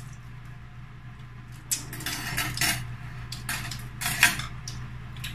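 Spoon and fork scraping and clinking against a plate, in a run of bursts that starts about a second and a half in, over a steady low hum.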